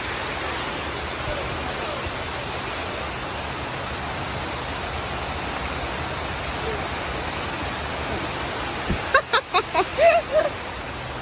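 Steady rush of water from an artificial rock waterfall on a mini-golf course. Near the end a person's voice makes a few short sounds, louder than the water.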